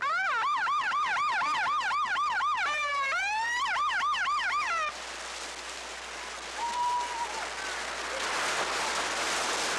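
A siren sounding the start of the swim: a fast yelp of about three rising-and-falling sweeps a second that changes to slower, longer wails and cuts off suddenly about five seconds in. After that comes an even rushing noise of surf and splashing.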